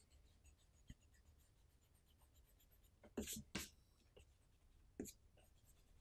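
Pencil's eraser tip rubbing on watercolour paper in a few short strokes, two close together just past the middle and one near the end, fading a pencil guide line; otherwise near silence.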